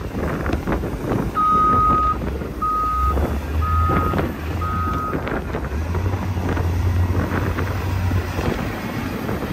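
Heavy truck's reversing alarm beeping four times, about once a second, the first beep longer, over the low rumble of the truck's engine running.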